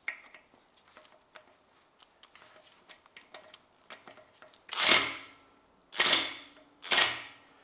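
Light metal clicks of a socket wrench being fitted and worked on a 12 mm oil filter housing bolt. Then three loud, sharp metallic bangs about a second apart, each ringing briefly, as the stubborn bolt is forced.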